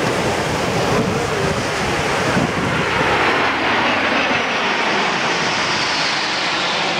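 Formation of Aero L-39 Albatros turbofan jets flying overhead: a steady jet rush, with a whine that falls in pitch over the last few seconds.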